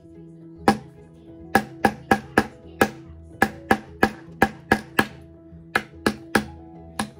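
A hammer striking a small nail into wood, about sixteen uneven blows, sometimes three a second, each with a short ring.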